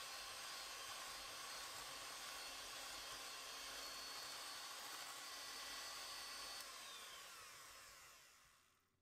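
Electric hand mixer running steadily, its wire beaters churning cheesecake batter in a glass bowl. About two-thirds of the way through it is switched off, and its motor whine falls in pitch as it spins down and fades out.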